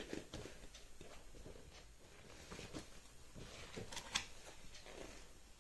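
Soft rustling and crinkling of the paper pages of a large picture book as they are leafed through by hand, with a sharper crackle about four seconds in.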